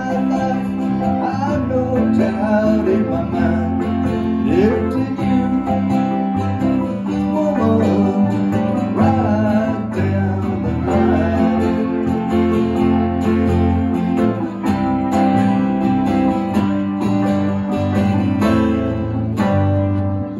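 Small live band playing: mandolin and acoustic guitar over keyboard, with a steady low bass line underneath.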